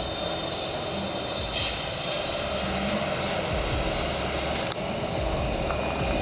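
A heavy truck's engine running steadily, a continuous drone with a high, steady whine above it.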